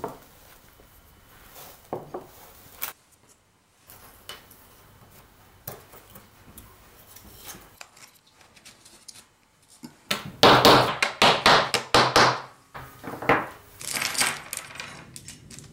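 Thin wooden kumiko strips and wooden jigs knocked and set down on a wooden workbench: scattered light wooden taps, then a rapid clatter of strips about ten seconds in, and again near the end.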